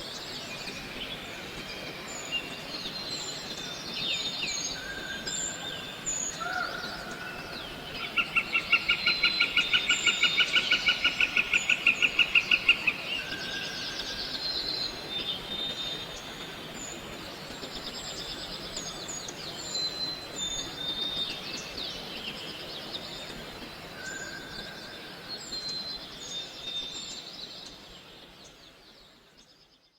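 Forest ambience with many birds calling and chirping over a steady background hiss. A loud rapid trill of about six pulses a second runs for about five seconds, from 8 s to 13 s. The sound fades out at the end.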